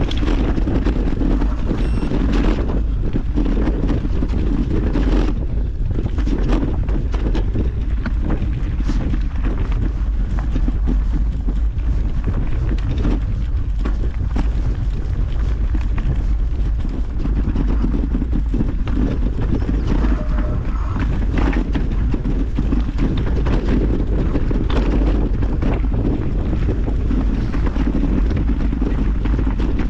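Wind buffeting the microphone of a camera on a mountain bike riding a rough trail, with tyre rumble and frequent short rattles and knocks from the bike over rocks.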